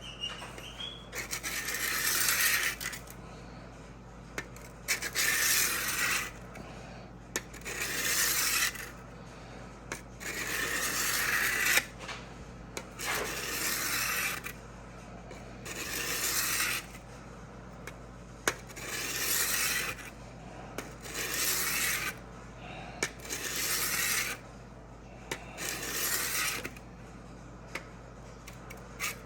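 Diamond sharpening block rubbing along the steel edge of an old drawknife in repeated scraping strokes, each about a second long, coming roughly every two seconds with short pauses between. The blade is being honed to raise a burr on the back.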